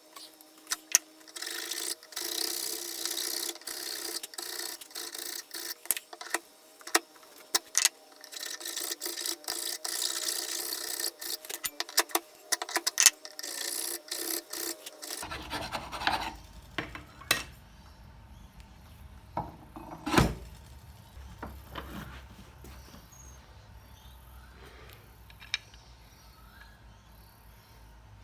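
Hand scraping and rubbing on the metal of an antique monkey wrench, fast and uneven with scattered clicks. About fifteen seconds in the scraping stops, leaving a faint hum with occasional taps and one louder knock about twenty seconds in.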